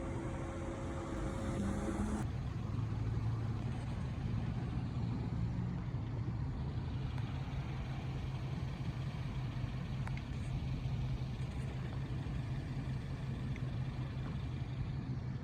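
A vehicle engine running steadily: a low hum under an even background noise.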